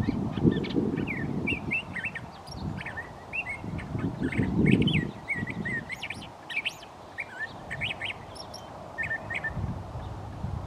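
Curve-billed thrasher singing: a long run of quick, varied whistled and warbled phrases that stop shortly before the end, over an intermittent low rumble.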